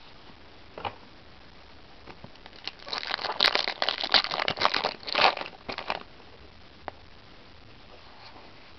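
A foil Yu-Gi-Oh booster pack wrapper crinkling and being torn open by hand: a dense run of crackles lasting about three seconds in the middle.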